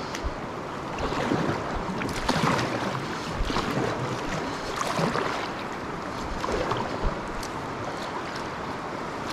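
River water rushing around an inflatable packraft, with paddle strokes splashing in the water roughly once a second.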